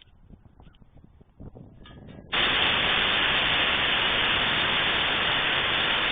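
Compressed air released from a nearly empty tank at about 5 psi rushes through the air horns as a loud, even hiss with no clear horn note. It starts abruptly about two seconds in and holds steady, while the tank pressure drops toward 4 psi, about the lowest these horns work at.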